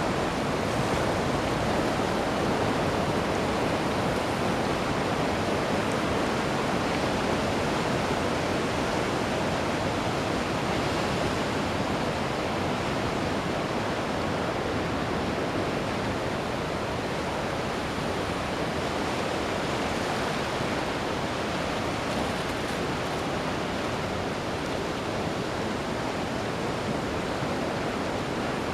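Ocean surf: a continuous wash of breaking waves that swells and eases slightly, with no distinct single crash.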